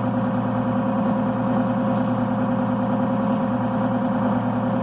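Allis-Chalmers 8070 tractor's diesel engine running at a steady speed, a constant hum heard from the tractor.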